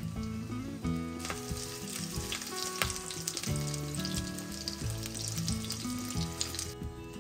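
Food frying in hot oil in a pan, a steady sizzle full of small crackles, starting about a second in and cutting off suddenly near the end. Background music plays underneath.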